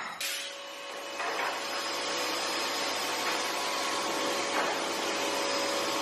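A power tool's electric motor running steadily, a constant whirring hum with a faint whine.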